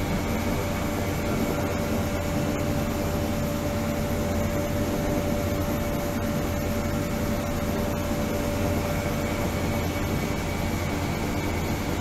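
Ultrasonic tank running: a steady noisy drone with a strong low hum and a thin steady tone that fades near the end.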